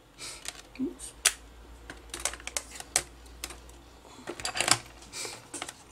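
Irregular clicks, taps and short rustles from handling a hard drive circuit board in a clear plastic bag on a workbench. A faint low hum runs underneath and stops about five seconds in.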